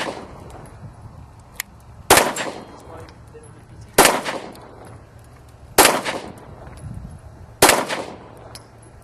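Four shots from a Smith & Wesson M&P9 9mm pistol firing MFS 9mm ammunition, slow aimed fire about two seconds apart, each sharp crack followed by a short echo. It opens on the fading echo of a shot fired just before.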